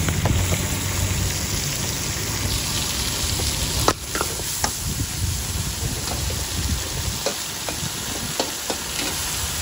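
Shrimp sizzling as they fry in a hot steel wok, with a metal spatula scraping and clinking against the pan as it is stir-fried. There is a steady hiss over a low rumble, dotted with short ticks from the spatula.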